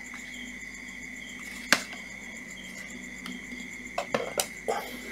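A sharp click a little under two seconds in, then a few quick knocks near the end as plastic cordless power-tool housings are lifted and set down on a tiled floor, over a steady high-pitched tone in the background.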